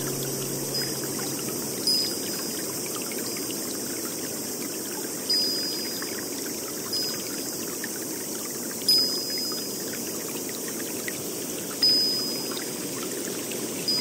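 Steady running or pouring water. A short, clear, high note sounds every two to three seconds.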